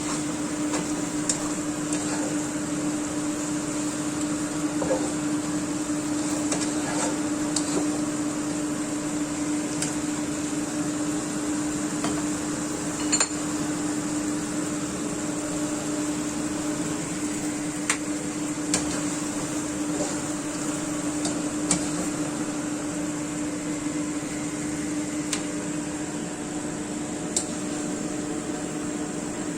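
Steady hum of a running kitchen appliance, with occasional light clicks and knocks of utensils.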